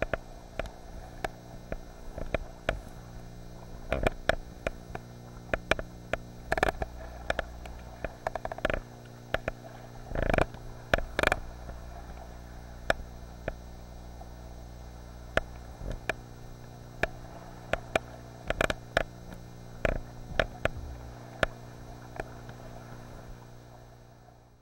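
Steady electrical hum of the camera's own recording noise, broken by many irregular sharp clicks and knocks of water and paddle against the camera and kayak while paddling in choppy sea.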